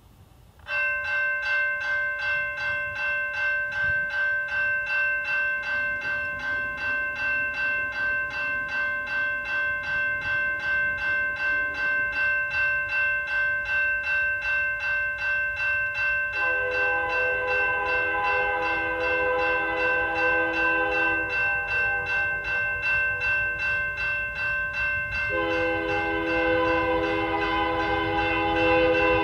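Railroad crossing's General Signals Type 2 electronic bell starts ringing about a second in and keeps up a steady, even pulse. About halfway through, the approaching freight's lead locomotive sounds its Nathan K3L chime horn in a long blast, then after a short break sounds it again over the bell.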